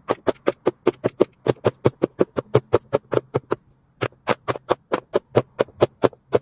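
Silicone pop-it bubbles being pressed in quick succession, each a short hollow pop, about six a second, with a brief pause a little under four seconds in.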